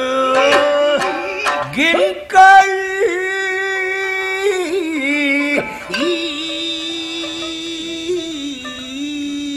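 Rōkyoku (naniwa-bushi) singing: a man's voice holding long, wavering, drawn-out notes, accompanied by sharp shamisen plucks in the first couple of seconds.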